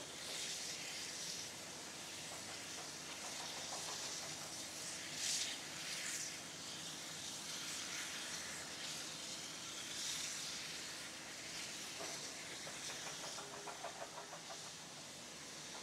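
Steady hiss of escaping steam from Victorian Railways J class steam locomotive J549, with a few brief louder surges.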